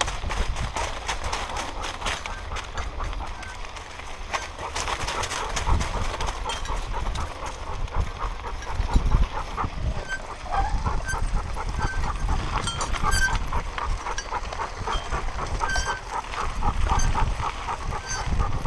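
A dog running hard on a dirt trail, heard from a camera strapped to its harness: quick rhythmic panting and footfalls over rumbling wind and harness-rattle noise.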